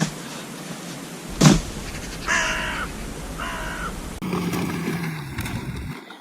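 Two harsh cawing calls like a crow's, each about half a second long, about a second apart. A sharp knock comes shortly before them.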